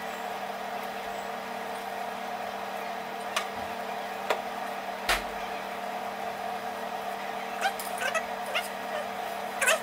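A steady hum runs under a handful of sharp knocks and taps as a PVC pipe is handled and turned over a gas stove burner; one knock about five seconds in carries a dull low thump, and a cluster of taps comes near the end.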